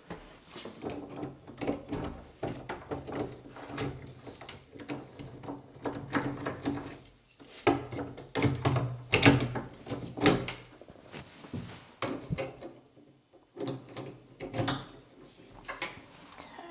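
Door knob hardware being fitted into an interior door: irregular metal clicks, knocks and rattles as the knob, latch and plates are handled and pushed into place.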